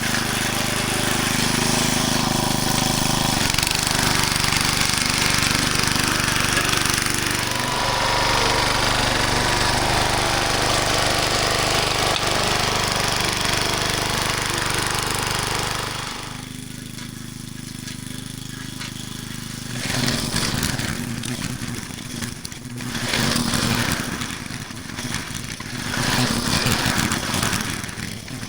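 Small gas engine of a garden tiller running while it churns the soil, its note shifting a couple of times and the sound dropping off partway through, then returning rougher and uneven.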